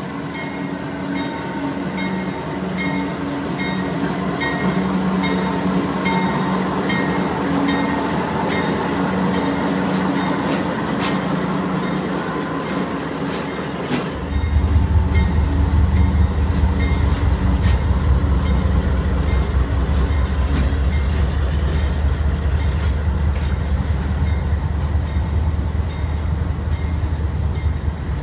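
CSX freight train passing close by: the diesel locomotives' engines running, then autorack cars rolling past with wheel clatter and a few sharp clanks, while a grade-crossing bell rings in steady strokes. About halfway the sound turns suddenly to a louder, deeper rumble.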